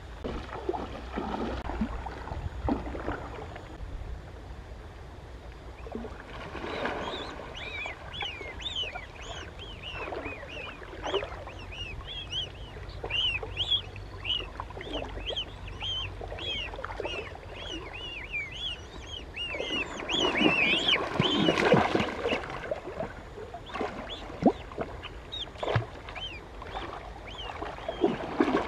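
A waterfowl chick peeping over and over, short high arched peeps about two a second for a stretch in the middle. Underneath is splashing and knocking of water, heaviest just after the peeping peaks about twenty seconds in.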